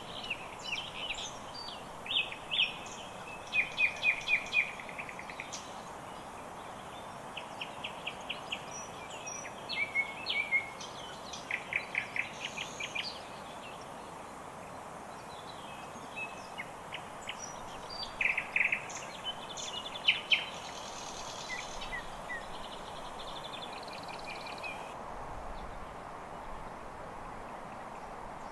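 Common chaffinch singing: several song phrases of rapid high notes, repeated with pauses, the last near the end of the first two-thirds, over a steady background rush.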